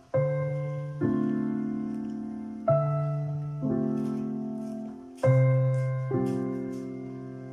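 Slow background piano music: chords struck one after another, about six in all, each left to fade before the next.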